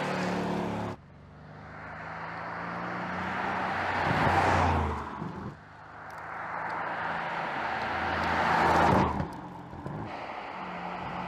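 Mercedes-AMG GLC 63 S twin-turbo 4.0-litre V8 accelerating past, twice: each pass grows louder to a peak and then cuts off abruptly. A steadier engine note follows near the end.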